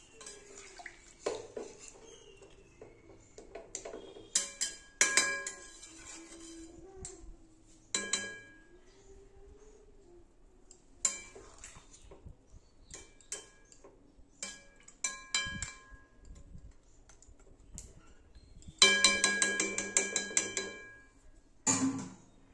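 Metal utensil knocking and clinking against a steel cooking pan, in scattered sharp knocks that ring briefly. Near the end comes a quick run of rapid taps lasting about two seconds, then one more knock.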